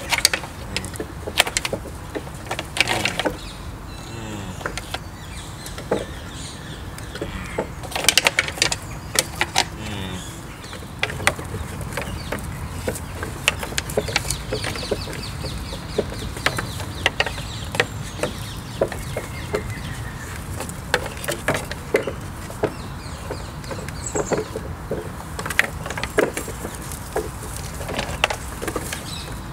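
Red deer stags' antlers knocking, clattering and scraping against a pile of dead branches, in irregular sharp clicks and knocks: the stags are rubbing their antlers on the wood to loosen them ahead of spring shedding.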